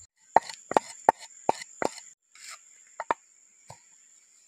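A metal utensil knocking sharply against a small clay pot: five hollow knocks about a third of a second apart, then after a short break three softer taps.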